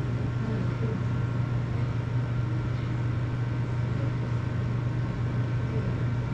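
Steady low hum, unchanging, with a few faint thin high tones above it.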